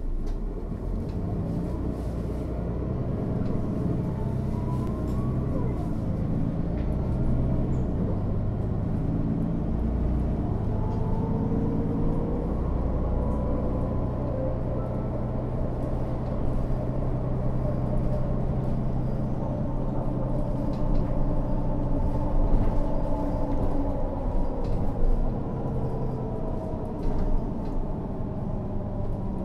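Mercedes-Benz O 530 Citaro city bus under way, heard from on board. The engine drones steadily, and a whine rises and falls in pitch several times as the bus speeds up and slows.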